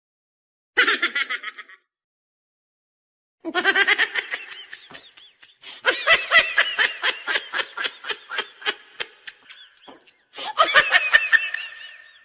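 A person laughing in three bouts of rapid, high-pitched 'ha-ha' pulses, with dead silence between them: a short burst about a second in, a long fit of laughter lasting about six seconds, and a last burst near the end.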